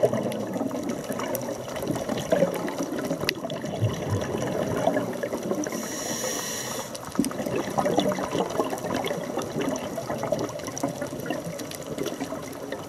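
Underwater scuba-dive audio: a diver's exhaled bubbles gurgle and crackle almost throughout. About six seconds in there is a brief hiss of a breath drawn through the regulator.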